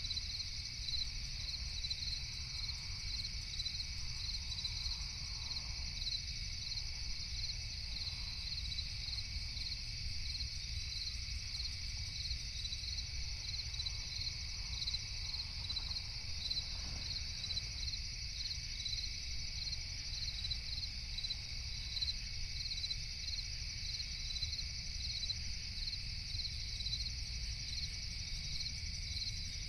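Crickets chirping steadily in an even, regular rhythm over a constant low rumble of background noise.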